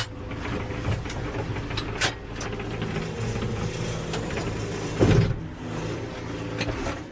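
A heavy engine running steadily, with a few sharp clanks and a loud thud about five seconds in.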